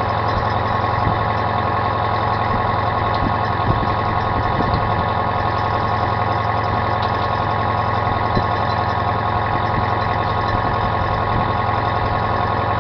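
Commercial fishing troller's engine running at a steady, constant drone while the boat trolls at low speed.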